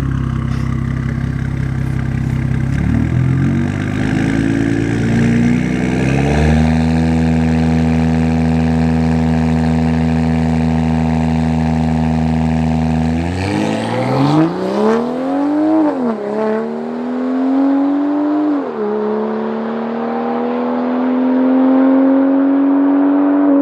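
Car engine held at steady revs while staged for a street-race launch, then launched hard: the pitch climbs through the gears, with two upshifts a few seconds apart.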